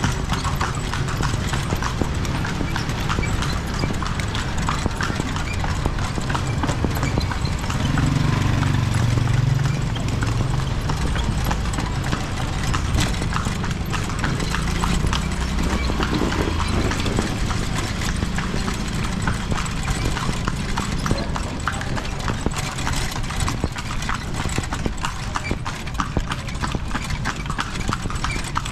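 Kalesa horse's hooves clip-clopping steadily on the street as it pulls the carriage, with a low hum swelling about a third of the way through.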